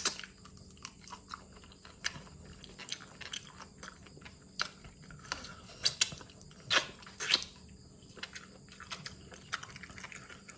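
Close-up chewing of mixed seafood salad: wet smacking with scattered crunches, and a few louder sharp cracks about six and seven seconds in.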